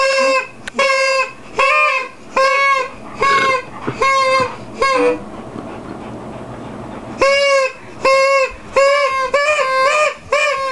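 Mouth-blown toy horn giving a run of short, loud, steady-pitched toots, about one and a half a second. They break off for about two seconds midway, then come back quicker and shorter.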